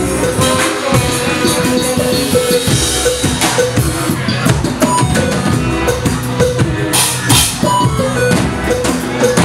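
Live funk band playing an instrumental groove: drum kit with kick and snare, electric guitar, bass guitar and keyboard.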